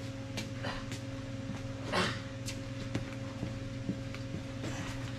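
A steady low machine hum, with scattered light knocks and rustles and one louder scrape about two seconds in.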